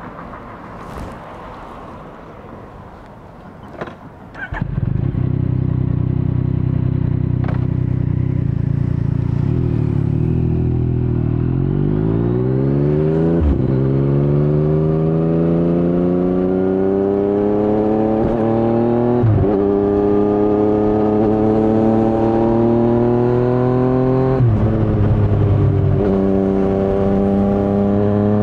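2019 Yamaha MT-09's inline three-cylinder engine through an Akrapovic carbon full exhaust system with no dB killer: it starts about four and a half seconds in and idles. Then it pulls away, rising in pitch, with three brief breaks as it upshifts.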